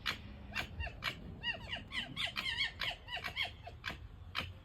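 Fox squeaking and chirping in a quick run of short high-pitched arched calls, among a steady series of short sharp clicks.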